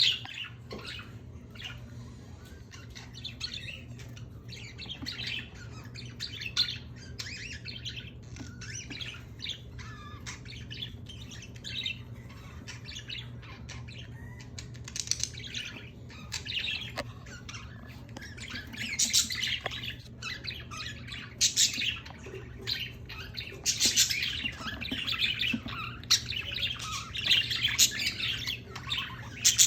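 Several pet birds chirping and squawking continuously, the calls getting busier and louder in the second half. A steady low hum runs underneath.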